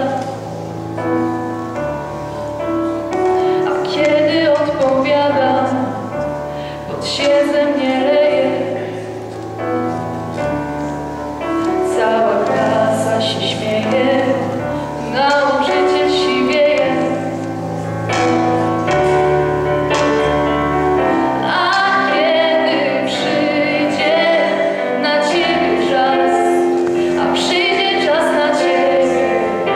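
A girl singing a song solo into a handheld microphone, with held chords on an electric keyboard accompanying her, amplified through a PA system.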